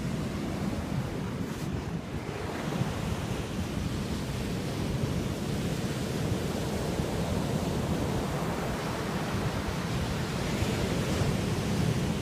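Ocean surf breaking, mixed with wind rumbling on the microphone as a steady noise.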